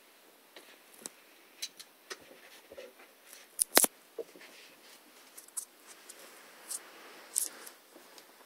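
Scattered light clicks and knocks of movement in a small room, with two sharper clicks close together a little under four seconds in.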